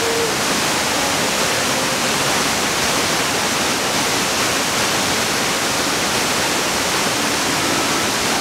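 Waterfall rushing, a steady, loud, even roar of falling water.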